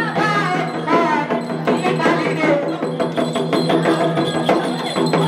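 Music: a wavering melody over a steady low drone, joined by quick, even percussion strokes from a little past halfway.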